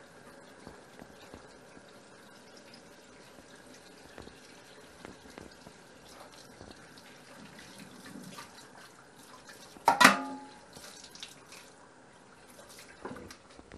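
Quiet kitchen handling, small clicks and taps, then one loud ringing clink of kitchenware struck or set down about ten seconds in, and a lighter knock near the end.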